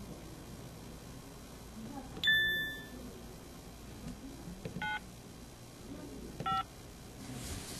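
SKY IM-S320K mobile phone keypad tones as keys are pressed: one louder beep about two seconds in that rings and fades over about half a second, then two short key beeps near the middle and toward the end, with faint key clicks.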